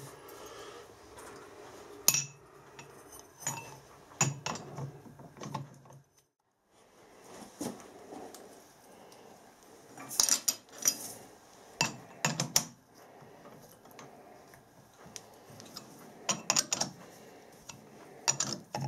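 Irregular metallic clinks and knocks from a lathe's four-jaw chuck being worked by hand: an aluminium disc is set against the jaws with thin aluminium packing strips, and the chuck key is turned in the jaw screws. The clinks come in short clusters.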